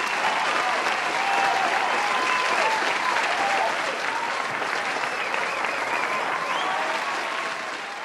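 Stock sound effect of a crowd applauding, with cheers rising and falling over the clapping. It fades away near the end.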